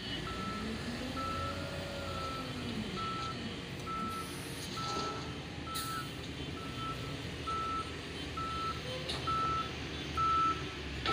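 A reversing alarm beeping steadily about once a second, over the steady running of a Tata tipper truck's diesel engine as it tips a load of soil.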